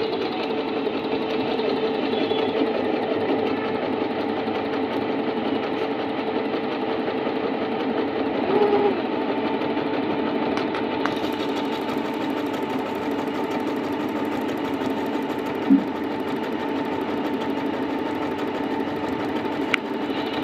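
Singer C5605 sewing machine running steadily, its needle stitching a zigzag stitch through fabric.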